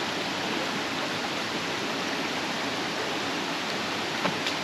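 Steady rushing of a rainforest creek and waterfall, with a couple of brief clicks near the end.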